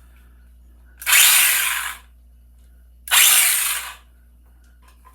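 Stihl GTA 26 battery-powered mini chainsaw triggered twice, its electric motor and chain running for about a second each time.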